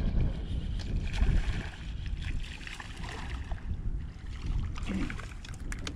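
Water lapping and splashing with wind rumbling on the microphone, and a few light clicks.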